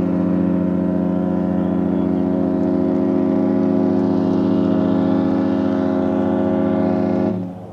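A Disney cruise ship's horn sounding one long steady blast of about seven seconds, starting sharply and cutting off near the end.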